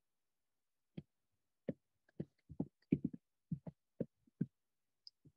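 Typing on a computer keyboard: about a dozen separate, irregularly spaced keystroke clicks.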